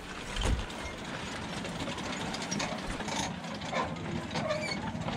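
Row of metal Buddhist prayer wheels being spun by hand one after another, rattling and clicking on their spindles, with short squeaks in the second half.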